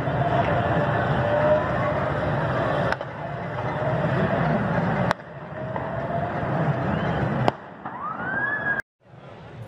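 Sirens wailing, slowly rising and falling in pitch, over a steady street din. The sound breaks off with a sharp click several times, and near the end a siren sweeps up just before a brief dropout.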